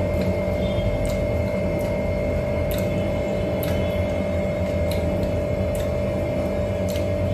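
Steady machine hum with a constant drone, and faint short eating sounds about once a second: chewing and smacking while licking food off the fingers.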